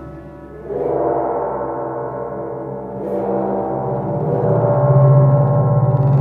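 Slow, tense contemporary acoustic chamber music for flutes, percussion and piano. A ringing, gong-like metal percussion stroke comes in about a second in and another about three seconds in, over held tones, and a low tone swells louder toward the end.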